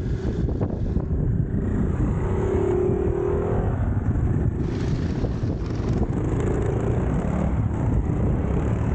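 Dual-sport motorcycle engines running as other dirt bikes ride up and one passes close by, over a heavy low rumble of wind on the microphone.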